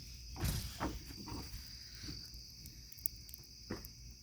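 Crickets chirring in a steady high chorus, with a few brief louder knocks or rustles close by, the loudest about half a second in and a sharp click near the end.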